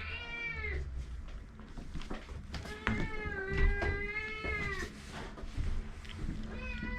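Kitten meowing in long, drawn-out cries at a steady pitch: one trailing off just after the start, one lasting about two seconds from around the 3-second mark, and another beginning near the end. A few light knocks sound between the cries.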